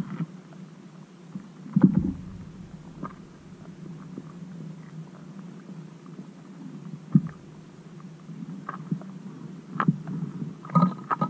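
Muffled underwater sound picked up by a camera below thin lake ice: a steady low hum with scattered dull thumps and faint clicks, the loudest thump about two seconds in, and a brief higher tone near the end.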